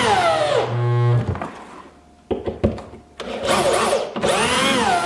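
Corded electric drill driving screws into a wooden ledger board. The motor speeds up and slows down, its whine rising and falling in pitch, in two bouts about three seconds apart.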